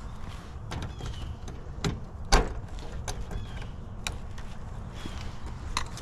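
Scattered clicks and knocks of tools and parts being handled during heat pump electrical checks, the sharpest about two and a half seconds in.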